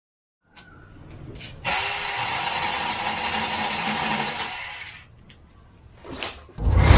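Battery-powered mini electric chainsaw running for about three seconds, then winding down, with a few clicks before and after. A deep, heavy thump near the end.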